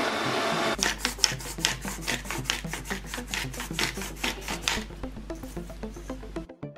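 A blender running, cut off about a second in, then a pepper mill being twisted over a pot of soup: a run of quick rasping grinds, about five a second, over background music.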